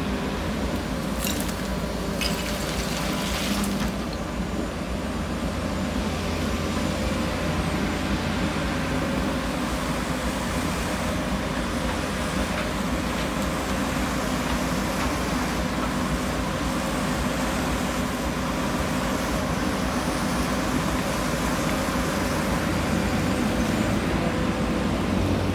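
Work train's diesel engine running steadily with a low hum, with a few sharp clicks in the first few seconds.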